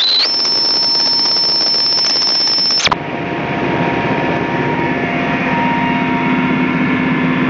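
A steady high-pitched tone for about the first three seconds, cutting off suddenly, then helicopter noise heard from inside the cabin: a steady hum with a rushing noise under it.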